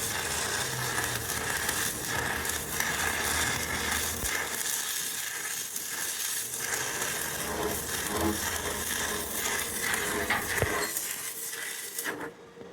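Electric arc welding: a steady sizzling crackle with scattered small pops, which stops abruptly just before the end.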